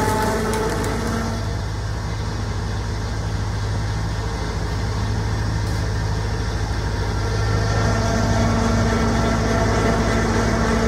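3 hp sugarcane juice machine running, its motor and steel crushing rollers giving a steady mechanical hum. About eight seconds in, the hum grows a little louder and a steady tone joins it as crushed cane is fed back between the rollers.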